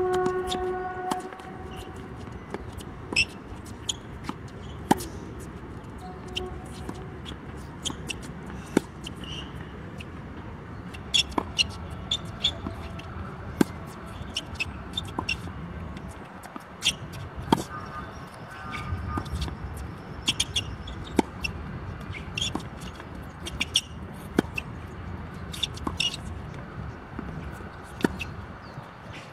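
Tennis rally on a hard court: repeated sharp pops of the ball off the racquets and the ball bouncing on the court, a second or two apart.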